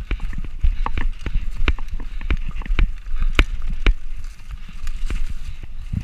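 Mountain bike descending a rough dirt singletrack: a fast, irregular clatter of knocks and rattles from the bike over rocks and ruts, over a steady low rumble. The knocks thin out and the sound drops in level about four seconds in.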